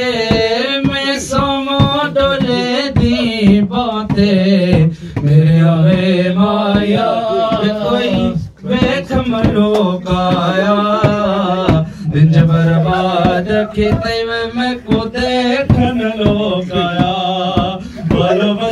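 A man sings a Punjabi song into a microphone through a PA, his voice sliding between long held notes. Sharp percussive beats run under the voice.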